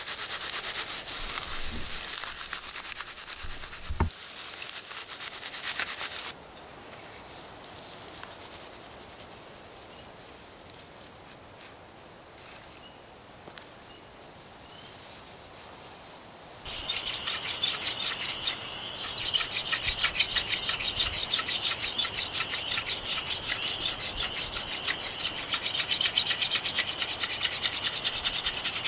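A wooden hand drill spun back and forth between the palms on a fireboard: a fast, rhythmic wood-on-wood rubbing with a steady squeak, friction fire-lighting to raise an ember. It starts about two-thirds of the way in, after a stretch of louder rubbing and rustling at the start and then quieter handling.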